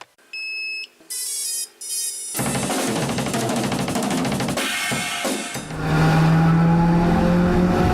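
Outro music: two short electronic tones, then a full drum-kit beat with cymbals that comes in about two seconds in, joined by a held bass note near six seconds.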